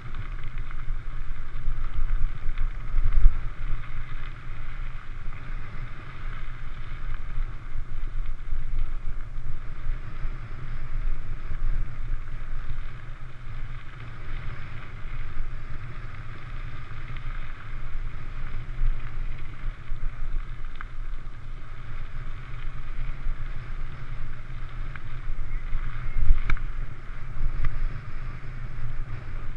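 Mountain bike ridden fast over gravel double-track, recorded on a bike-mounted GoPro: steady wind buffeting on the microphone over the rumble of knobby tyres on gravel. A hard jolt comes about three seconds in and another near the end.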